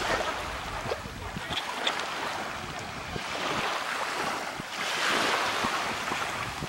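Sea surf washing with wind buffeting the microphone; the wash swells up about five seconds in.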